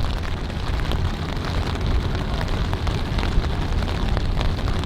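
Steady rain pattering, with many small sharp drop hits, over a continuous low rumble.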